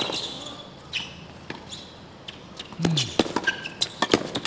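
Tennis point on a hard court: the serve is struck at the start, then racket hits and ball bounces that quicken into a rapid exchange near the end. Short shoe squeaks come off the court surface.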